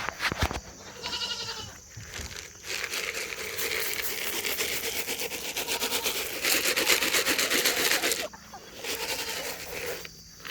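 A goat bleats once about a second in. It is followed by several seconds of dry rustling and crackling noise that stops abruptly about eight seconds in.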